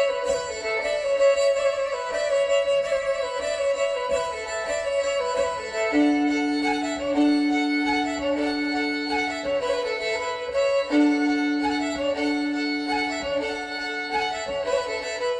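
Live instrumental band music with a bowed violin carrying the melody over long held lower notes.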